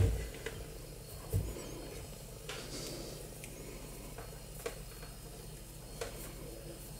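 Scattered light clicks and taps from multimeter test probes being handled, with two dull thumps in the first couple of seconds, over a faint steady low hum.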